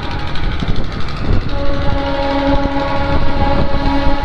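A MEMU electric local train's horn sounds a long steady blast starting about a second and a half in, with a brief break near the end. Under it is the steady rumble of the train running on the track.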